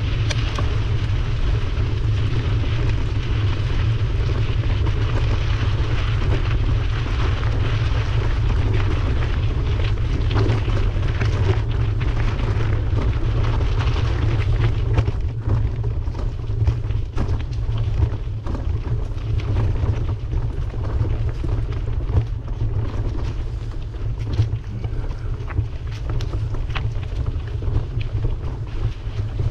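Wind buffeting the microphone of a camera riding along on a moving bicycle: a steady low rumble with rushing noise above it, and scattered small clicks and knocks in the second half.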